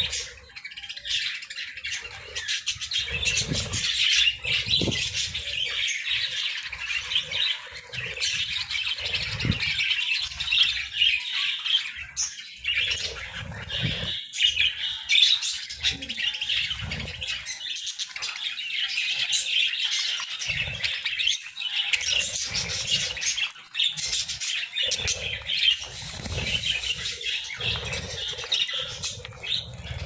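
A flock of budgerigars chattering and warbling together in a dense, unbroken twitter while they feed, with low thumps now and then.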